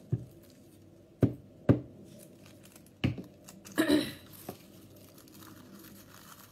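A few sharp knocks of a glue stick and craft things handled on a tabletop, then a brief crinkling rustle of tissue paper about four seconds in.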